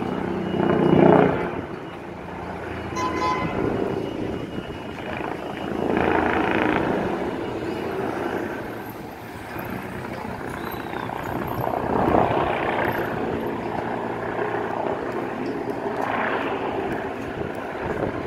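Aircraft engine noise, a steady hum that swells louder and fades back about four times.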